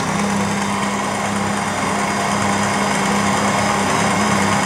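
Electric planetary stand mixer running steadily with a constant motor hum as it works margarine into flour for a shortcrust dough.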